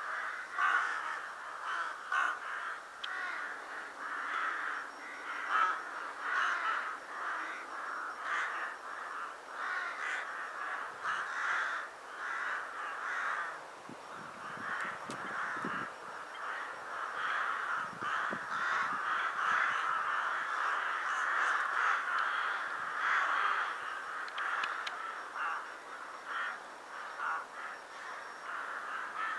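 A large flock of rooks cawing, many birds calling over one another without a break. This is a winter flock gathering at its dusk assembly site.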